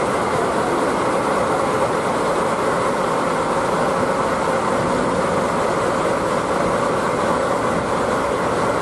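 A train's steady, even rumble with no distinct clicks or changes.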